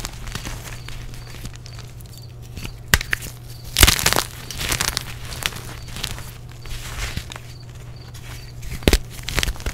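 Blue-dyed gym chalk blocks crushed and crumbled by hand into powder: a run of soft crunching and crumbling, with sharp cracks about three seconds in, near four seconds (the loudest) and near nine seconds as chunks snap between the fingers.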